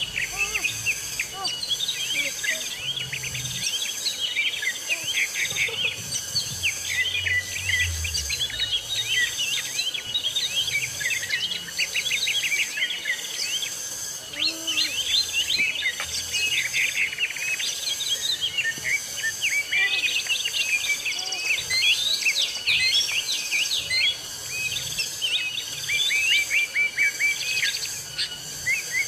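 Forest birds chirping and calling in many quick, overlapping short notes, over a steady high insect buzz that pulses about once a second.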